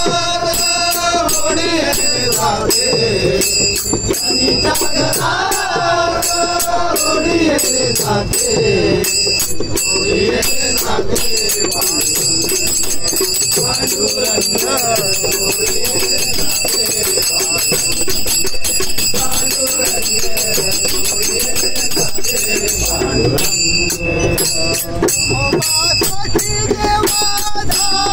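Men singing a Marathi abhang bhajan to small brass hand cymbals (taal) and a hand drum (dholak). The cymbals are struck in a steady rhythm and keep ringing throughout.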